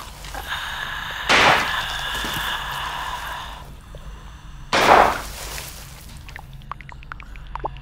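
Two pistol shots, about a second in and again near five seconds in, the first followed by a ringing tone lasting about two seconds. Faint scattered clicks follow near the end.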